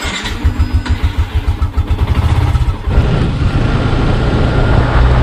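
Motorcycle engine idling with an even low pulse, then about three seconds in a steadier, louder engine drone as the bike rides along.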